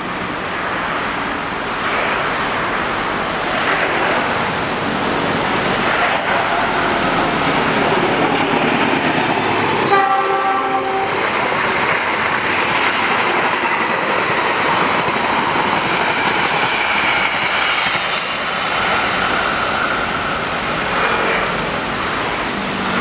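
Locomotive-hauled passenger train passing close at speed, its coaches' wheels rumbling and clattering over the rails. A short horn blast sounds about ten seconds in.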